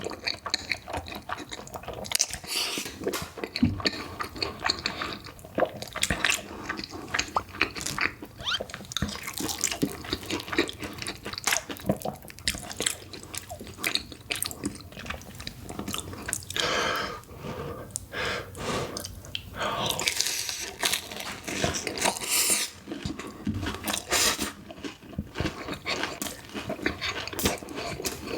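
Close-miked eating of noodles with cheese: wet chewing and mouth smacks in a dense run of small clicks, with a few longer wet stretches about 17 and 21 seconds in.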